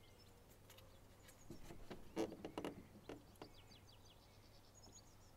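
Faint handling noises as an adhesive windscreen antenna strip and its plastic backing are held and positioned: a few soft clicks and rustles about two seconds in, with faint bird chirps in the background.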